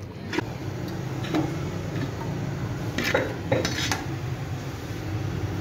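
Glass lid of a metal cooking pot being lifted off, clinking against the pot's rim: a handful of sharp clinks, two of them close together about three seconds in and another pair shortly after, over a steady low hum.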